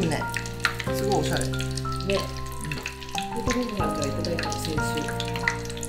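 Hot oil sizzling and crackling in a pot on a portable gas burner, with steady background music of held notes.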